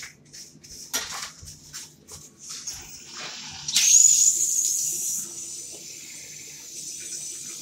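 Water running from a newly fitted single-lever basin mixer tap into a ceramic wash basin, with a few light knocks and rubs early on. About three and a half seconds in the water turns into a louder rush, then eases to a steady flow.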